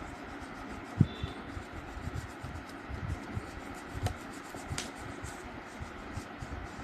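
Colouring strokes rubbing on paper, with a sharp knock about a second in and a few light taps.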